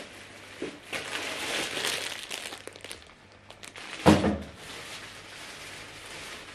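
Thin plastic packaging crinkling as a bagged pack of bread rolls is handled, with a single loud thump about four seconds in.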